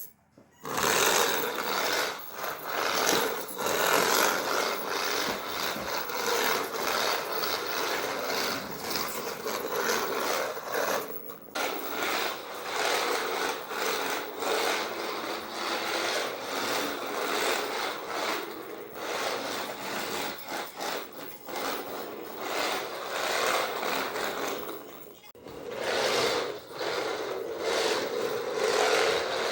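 Small 3D-printed 1/24-scale RC trike running: its tiny electric motor and plastic drivetrain whirring with a rough, rasping sound, dropping away briefly about 11 seconds in and again near 25 seconds.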